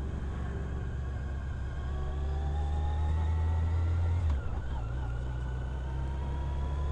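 Touring motorcycle engine running under way. Its note climbs as the bike picks up speed, breaks briefly a little after four seconds in, then pulls on steadily.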